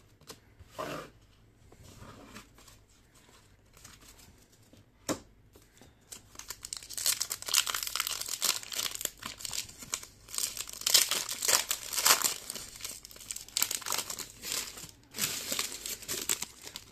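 Foil trading-card packet crinkling and tearing as it is ripped open, starting about six seconds in and running densely until near the end. Before that there is only quiet card handling, with a single sharp click about five seconds in.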